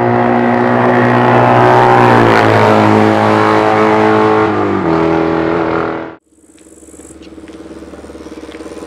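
Loud motorcycle engine running at high revs, its pitch dropping about five seconds in, then cutting off suddenly. A vintage racing motorcycle then runs at low revs, growing steadily louder as it approaches.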